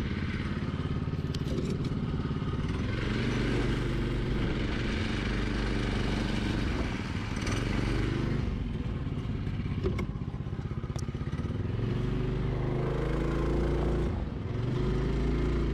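196cc single-cylinder OHV engine of a mini buggy running under way, its note rising and falling several times as the throttle is opened and eased off. A single sharp knock comes about ten seconds in.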